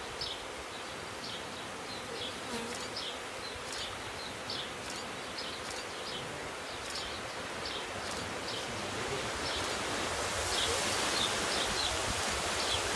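Honeybee swarm buzzing around and on a person wearing a bee beard, with short high chirps repeating over it.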